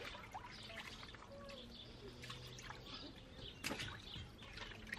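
Quiet outdoor background with faint, scattered small clicks and ticks, and one sharper click a little before the end.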